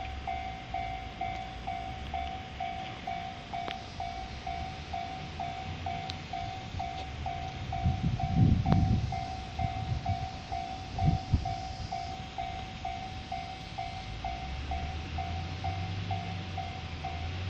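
Railway level-crossing alarm ringing a steady repeated ding, about two and a half strokes a second, as the crossing is active. Partway through, a train passes with a low rumble and a couple of wheel knocks, loudest about halfway.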